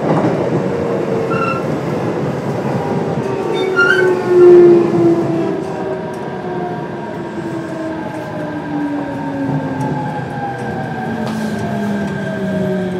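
Kintetsu 7000 series train's Mitsubishi IGBT-VVVF inverter and traction motors whining, a set of tones falling steadily in pitch as the train slows under braking on its approach to the station, over rail running noise. The sound swells briefly louder about four seconds in.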